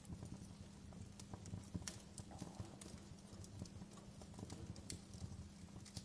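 Logs burning in an open fireplace: irregular crackles and sharp pops over a low rumble from the flames.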